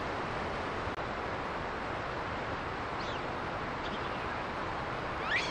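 Steady rushing outdoor ambience, with a couple of faint high chirps past the middle and one short, sharp rising call near the end.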